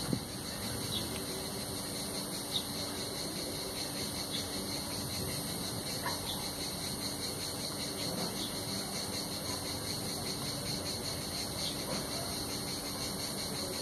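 Steady insect chorus outdoors: a fast, even trill with a high hiss above it, unchanging throughout.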